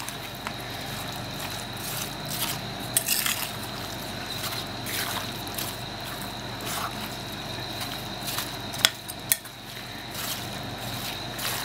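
A spoon stirring cream-coated chopped fruit in a glass bowl: steady wet squelching and sloshing, with a few sharp clinks of the spoon against the glass.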